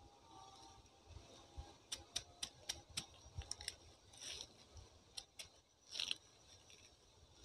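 Faint handling sounds in dry leaf litter. About two seconds in comes a quick run of sharp clicks and ticks as a knife works at a fallen young durian's spiny husk, followed by two brief rustles of dry leaves.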